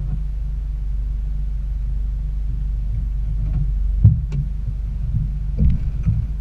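A car's engine idling after a crash, heard as a low steady rumble from inside the cabin. A sharp knock comes about four seconds in and another about a second and a half later, from movement inside the car.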